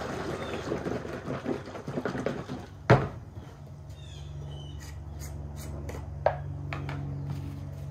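Tung oil sloshing in a metal can being shaken, then the can knocks down on the wooden bench about three seconds in. A few light clicks follow as the can's cap is worked off, over a steady low hum.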